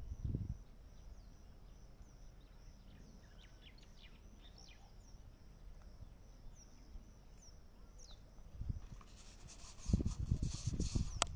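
Open-air ambience with scattered faint bird chirps. About nine seconds in comes a cluster of low thumps with a rustling hiss.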